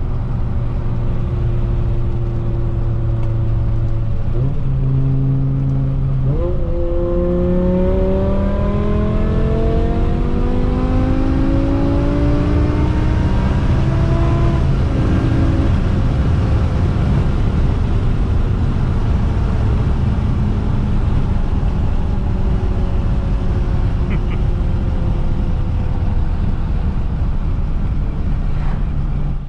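BMW E60 M5's S85 V10 through a straight-piped exhaust, heard from inside the cabin while driving. It runs steady at first, with the pitch stepping up about four and six seconds in. The revs then climb steadily for about eight seconds under acceleration, and the engine settles back to a cruise with slowly falling pitch.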